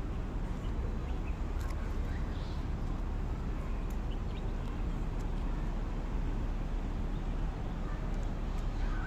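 Outdoor city ambience: a steady low rumble with a few faint bird chirps over it.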